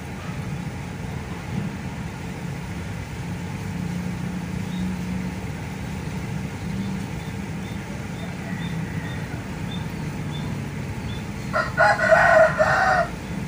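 A rooster crows once near the end, loud and drawn out for about a second and a half, over a steady low rumble of distant traffic.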